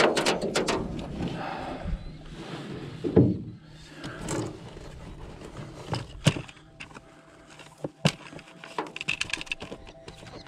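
Handling noises in an aluminum boat: scattered knocks and clicks with some rustling, as a freshly caught bass is unhooked and held and gear is moved about.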